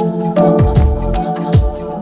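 Background music: an electronic track with deep kick drums, sharp percussion hits and held keyboard chords.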